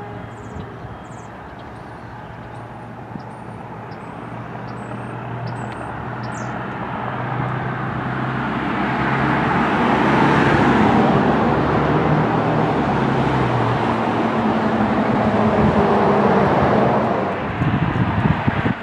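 Road traffic: engine drone and tyre noise of passing vehicles, building over several seconds to a loud stretch, then easing off near the end.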